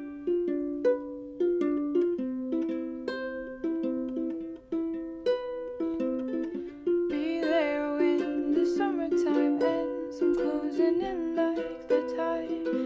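Background music: a plucked string instrument picks out a light, even melody. About seven seconds in, a second melody line with gliding pitch joins.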